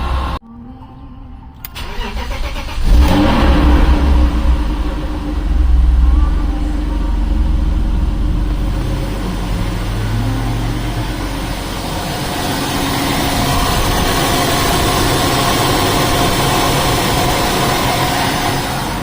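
After a short lull, a car engine is cranked and starts about three seconds in. It runs up loudly for a few seconds, then settles into a steady idle.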